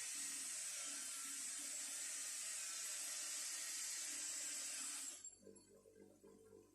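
A wire wheel on a bench grinder brushing rust off the wrench's thumb wheel: a steady hissing whir that cuts off about five seconds in, leaving a faint low hum.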